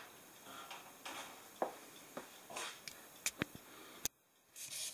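Faint scattered clicks and light knocks in a small room, with a brief cut to silence about four seconds in.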